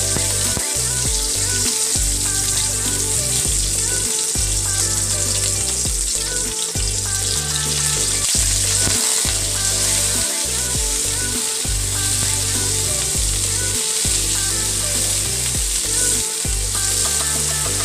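Onion, tomato and bell pepper pieces sizzling steadily in hot oil in a wok as a spatula stirs them, with background music underneath.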